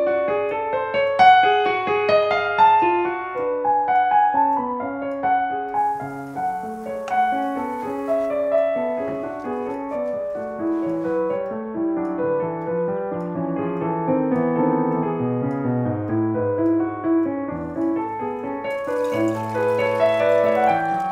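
Solo piano music: a gentle melody over slow low bass notes.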